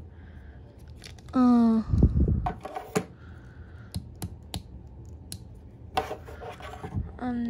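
Plastic parts of a Transformers Cutthroat action figure clicking and knocking as they are handled and pegged together, with a dull knock about two seconds in and scattered sharp clicks after it. A short hum comes a moment before the knock.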